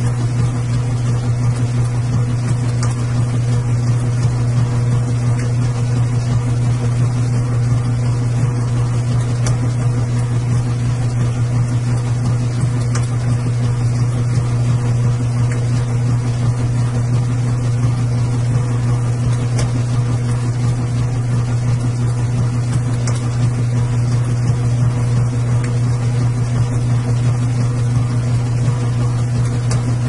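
Washing machine running with a steady, unchanging low hum and a few faint ticks.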